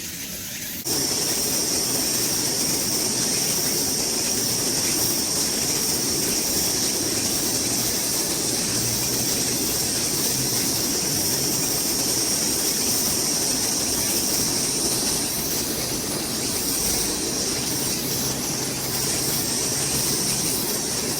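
Oil sizzling on a hot iron griddle plate: a steady hiss that starts abruptly about a second in.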